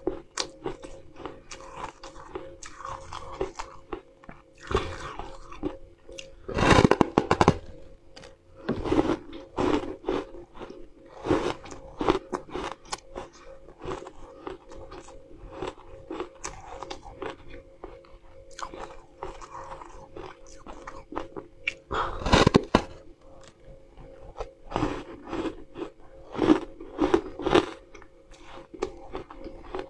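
Close-up biting and chewing of a large, dry, crisp flat wafer-like slab: crackling crunches throughout, loudest at two big bites about seven seconds in and again about twenty-two seconds in. A faint steady hum sits underneath.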